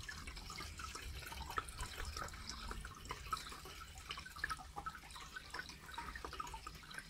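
Water in a goldfish tank dripping and trickling: many small irregular plinks over a low steady hum.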